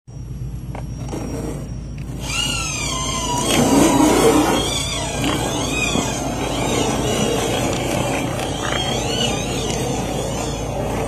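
Small electric motor and gears of an RC crawler truck whining, rising and falling in pitch as it works, with tires grinding over rocks and gravel.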